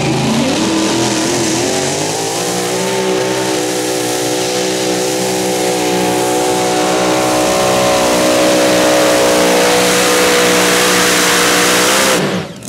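Competition pulling tractor's engine at full throttle during a pull. Its pitch climbs over the first few seconds, then holds high and steady, and it stops abruptly near the end.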